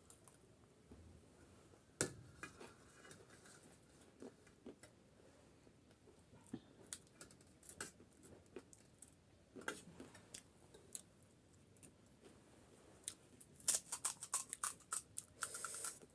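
Close-up eating sounds: chewing and crunching of crisp snack food, with scattered sharp clicks and crunches and a quick run of crunches near the end.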